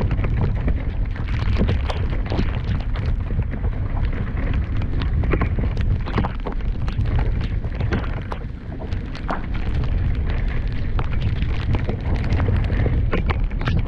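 Rumble and buffeting on the camera microphone during a fast descent of a wet, muddy mountain-bike trail, broken by many sharp clicks, rattles and splashes of mud and water.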